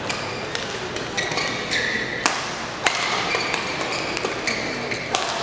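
Badminton rally: sharp racket hits on the shuttlecock, loudest a little over two seconds and near three seconds in, among the high squeaks of players' shoes on the court mat, over the murmur of a large hall.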